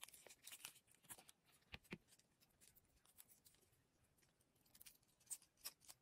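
Faint handling sounds of small resin pieces with metal fittings and a silicone mold: soft rustling with scattered light clicks, the two sharpest about two seconds in and a few more near the end.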